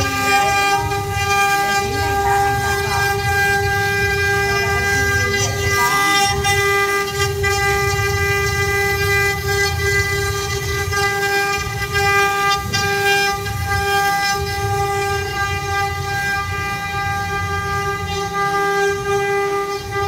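CNC wood carving router running: its spindle motors give a steady, unchanging high whine while the bits cut hardwood, with an uneven low rumble underneath.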